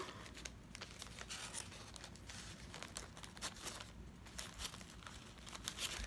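Faint rustling and crinkling of a stack of brown paper bags being handled as a ribbon is laced through their punched holes, with small irregular paper clicks throughout.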